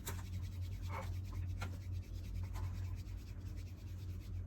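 Soft rubbing and scratching with a few light knocks, over a low steady hum.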